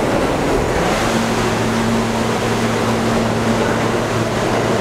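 An R68 subway train moving along the station platform: a steady rumble of wheels and motors, with a low steady hum coming in about a second in.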